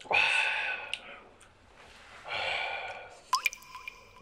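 A man's breathy "ahh" of satisfaction after slurping hot soup, heard twice. Near the end comes a sharp clink that rings on briefly.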